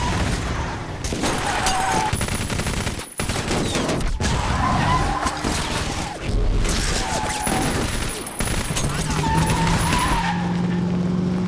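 BMW 7 Series' tyres squealing in several long skids as the car spins and slews at speed, over its V8 engine running hard, with rapid gunfire crackling through the mix.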